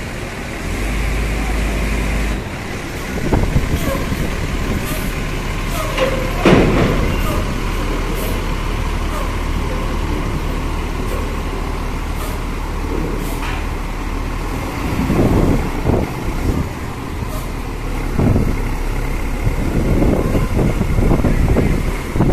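Diesel bus engines running steadily, with a sudden hiss of air brakes about six seconds in and voices in the background.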